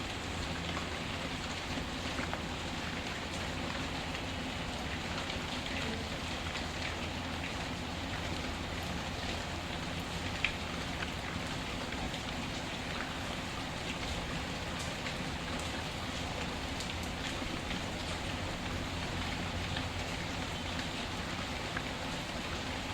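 Steady rain falling, with a wood fire's scattered faint crackles over it and one sharper pop about ten seconds in.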